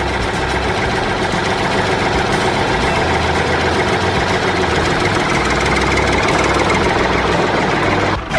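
An engine running steadily at idle with a heavy low rumble, cutting off abruptly near the end.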